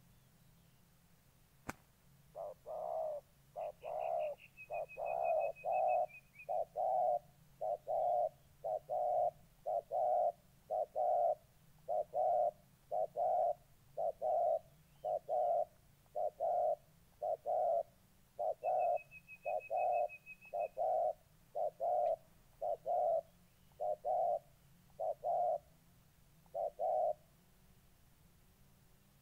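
Spotted doves cooing in a long run of short, low, evenly spaced coos, a little more than one a second, that stops a couple of seconds before the end: the territorial cooing of a decoy male squaring off with a wild bird eager to fight.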